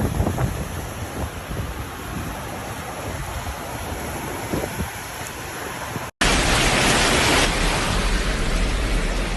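Heavy rain and wind making a steady rushing hiss. About six seconds in there is an abrupt cut to a louder, steadier downpour hiss.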